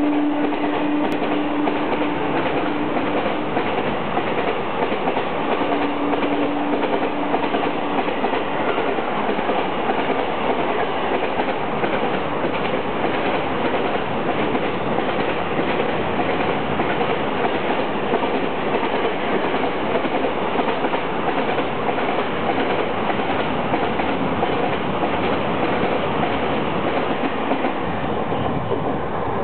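Freight train wagons passing at speed, with a steady rattle and clatter of wheels over the rail joints. The horn of the electric locomotive holds on through the first few seconds and sounds again for about two seconds after the sixth second. The noise eases a little near the end as the last wagons go by.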